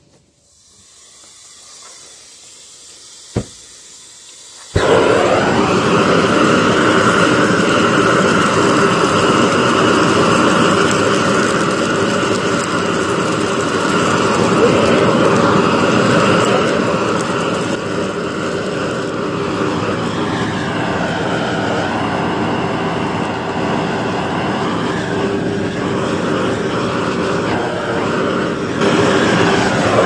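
Long-wand gas torch fed by a hose, lit with a sudden start about four and a half seconds in after a single click, then burning with a loud, steady rushing noise as it is aimed at charcoal in a pan to light it. It grows a little louder near the end.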